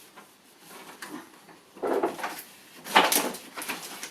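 Parts of a toy play shop being handled: a short clatter about two seconds in, then a sharper knock about a second later, followed by a few small taps.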